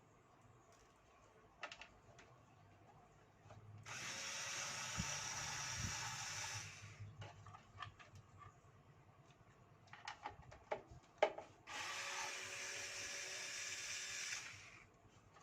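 Cordless drill-driver run twice, about three seconds each time, backing out the case screws of a desktop computer, with clicks and taps of handling between the runs.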